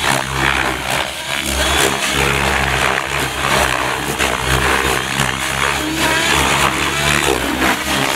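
Gaui X7 radio-controlled helicopter flying 3D manoeuvres low over grass, its main rotor beating loudly with a steady low drone that swells and fades as it swoops and turns.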